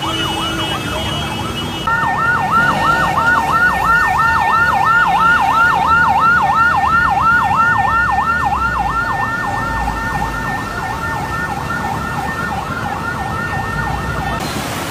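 Electronic siren sounding a fast yelp, about three rising-and-falling sweeps a second, with a steady tone held alongside it from about two seconds in. The yelp grows fainter in the last few seconds and the steady tone stops just before the end.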